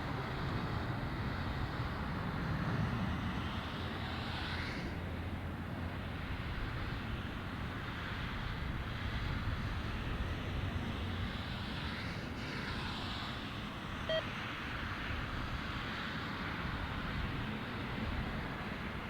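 Swiss Boeing 777-300ER's GE90 jet engines, a steady rumble and hiss that swells gently twice as the airliner rolls along the runway.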